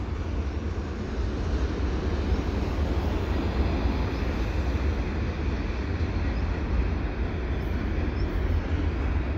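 Double-stack container freight train's well cars rolling past, a steady rolling noise of steel wheels on rail with no change through the pass.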